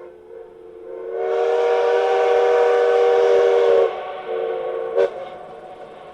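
Train whistle blowing a chord: one long blast of about three seconds, then a short one, over a steady rushing rumble of a train.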